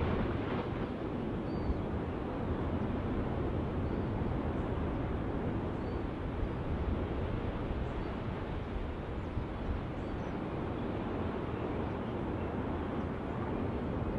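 Steady, deep rumbling roar of an erupting lava vent, unchanging throughout.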